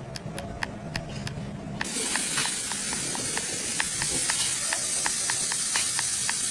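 Regular mechanical clicking, about four clicks a second, joined about two seconds in by a loud steady hiss like a jet of spray or air that continues alongside the clicks.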